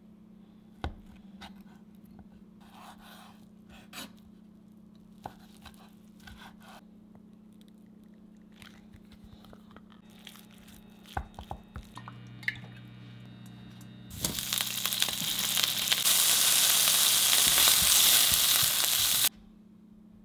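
A kitchen knife slicing ham into strips on a wooden cutting board, giving a scattering of soft taps and knocks. Later come a cluster of sharper knocks and a low hum, then a loud steady hiss for about five seconds that cuts off suddenly.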